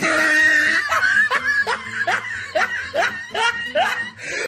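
Pomeranian puppy yapping: one drawn-out high call, then a quick run of short, rising yaps.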